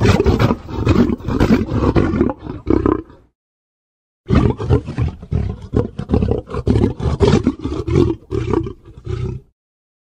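Creature roar sound effect for a crocodile-like monster: two long, rough roars, the first dying away about three seconds in and the second starting about a second later and running on until shortly before the end.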